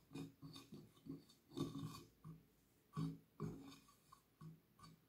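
Faint, irregular squelching and rubbing of a hand kneading an oily flour-and-cocoa dough against the bottom of a glass baking dish.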